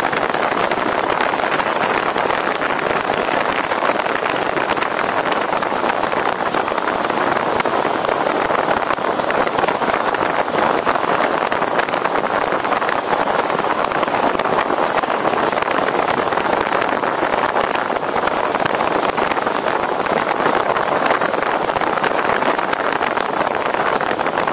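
Steady rush of wind over a roof-mounted action camera's microphones, mixed with tyre and road noise from a moving car.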